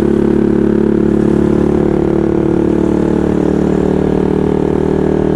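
Bajaj Pulsar 200 single-cylinder motorcycle engines cruising side by side at a steady engine speed, without revving. The loudest is a modified bike running a custom SC Project-style full-system exhaust. Wind and road noise run underneath.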